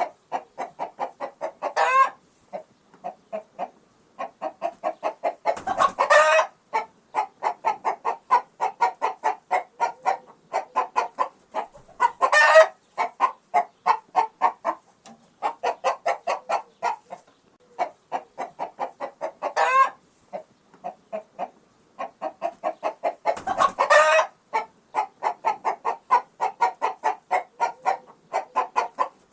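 Agitated chicken clucking in fast runs of short clucks, several a second. Every few seconds the clucking is broken by a longer, louder call.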